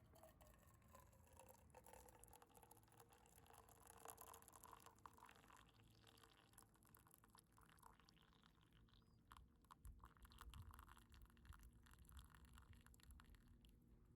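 Faint pouring of liquid, with a few small clicks.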